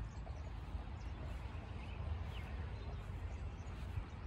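Outdoor ambience: a steady low rumble on the microphone with a few faint bird chirps.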